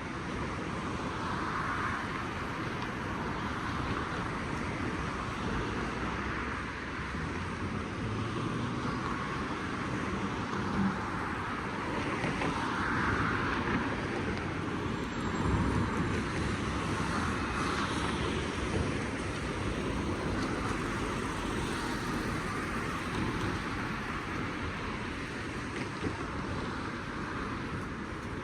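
Street traffic: a steady rumble with cars passing, their tyre noise swelling and fading several times.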